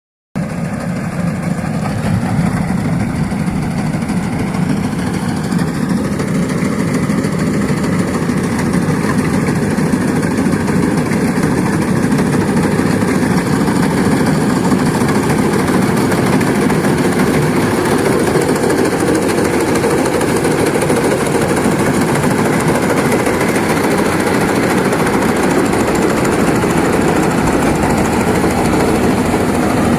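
Rice combine harvester running steadily: a loud, continuous engine and machinery drone with no pauses.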